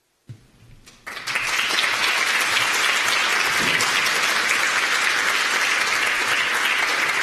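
Audience applauding: after a second of near silence the clapping comes in all at once and holds steady.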